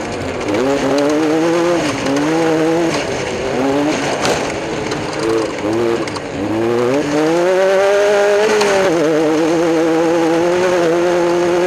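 Class 10 off-road race car's engine revving in a series of short rising blips, then climbing at about seven seconds and held at high revs with a slight waver.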